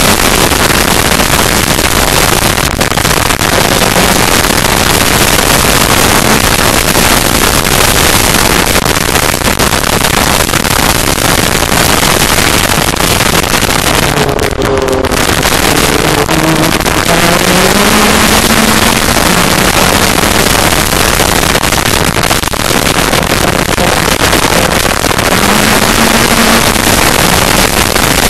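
Yamaha side-by-side's engine under hard throttle, heard from inside the open cockpit under heavy wind and track noise, its revs rising and falling. About halfway through the noise briefly thins and the pitch falls as the throttle lifts, then the revs climb again.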